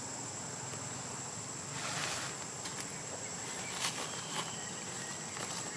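Steady high-pitched insect drone, a single thin tone held throughout. A brief swell of noise comes about two seconds in, and a few faint clicks near four seconds.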